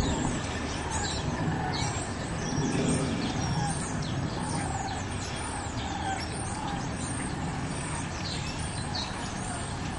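Small birds chirping repeatedly, many short high chirps that fall in pitch, over a steady low outdoor rumble.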